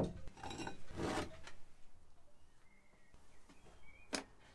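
A ceramic mug set down on a stone workbench with a sharp clack, followed by two short scraping rubs. About four seconds in, a light tap as a small plastic pencil sharpener is set on a wooden shelf.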